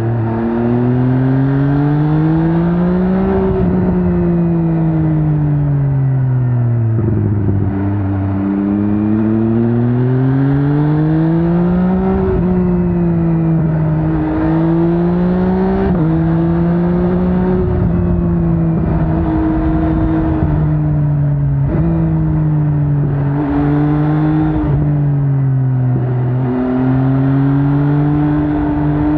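MV Agusta Brutale 800's inline three-cylinder engine under riding load. The revs rise and fall repeatedly as the bike accelerates and eases off, with sudden pitch drops at several gear changes and a stretch of steady cruising in the middle.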